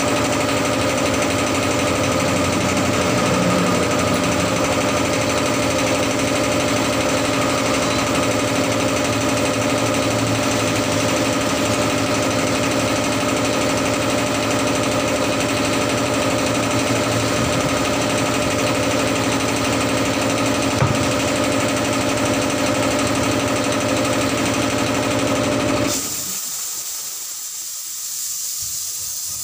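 An air compressor running steadily with a hard, rhythmic mechanical drone. Near the end it cuts off suddenly and a steady hiss follows.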